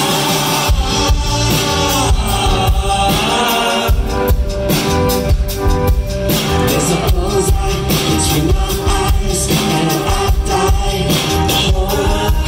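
Live rock band playing loud through the stage PA: drum kit, electric guitar and bass, with the singer's voice over it. The low end drops out briefly twice, near the start and again about three and a half seconds in, before the full band comes back.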